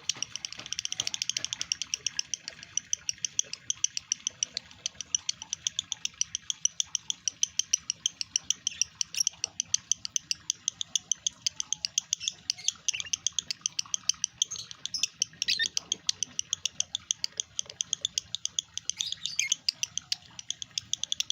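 Male lovebird in breeding condition giving a long, unbroken 'lari' song: a rapid, continuous run of sharp, high chirps, several a second.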